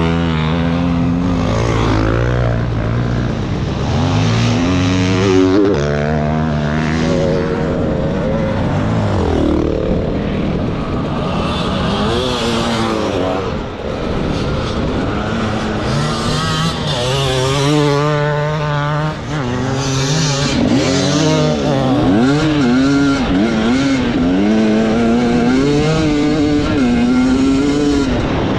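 Off-road enduro motorcycle engine under way, its pitch repeatedly rising and falling as the throttle opens and closes and gears change.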